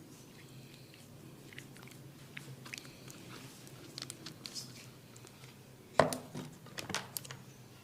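Massage sounds: scattered small clicks and taps of hands working on the head and neck, with one sharp, louder snap about six seconds in and a few quick clicks after it.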